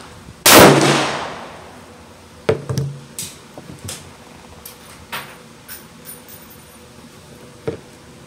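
Taurus Tracker revolver firing a .22 Long Rifle round double action: one sharp crack about half a second in, with a long echoing tail. About two seconds later come a couple of quieter bangs, then light clicks.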